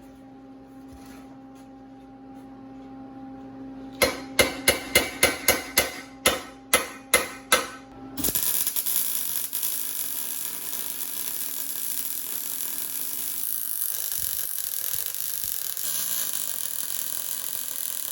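About a dozen quick hammer blows ringing on steel tubing, then, about 8 seconds in, a welding arc starts with a steady hiss and crackle. A low electrical hum lies under the hammering.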